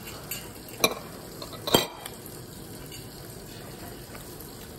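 A metal fork clicks against a ceramic plate a few times in the first two seconds, the loudest just under two seconds in, over a steady background hiss.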